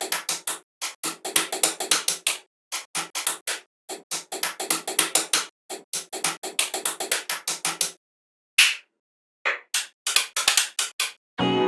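Fast runs of short, sharp knocks, several a second, broken by brief pauses. Music begins right at the end.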